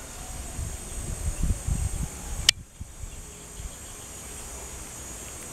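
Steady high-pitched insect chirring in the background, with a low rumble about a second in and one sharp click about two and a half seconds in.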